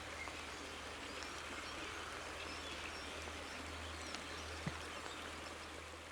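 Faint steady hiss-like background noise with a low hum underneath and a few light ticks, once the guitar has died away.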